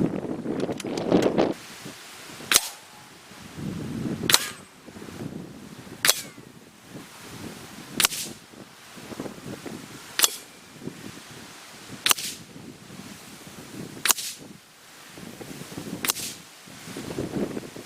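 Shots from a Hatsan AT-44 .22 pre-charged pneumatic air rifle, quieted by its built-in shroud. There are eight sharp reports, about two seconds apart, with softer rustling between some of them.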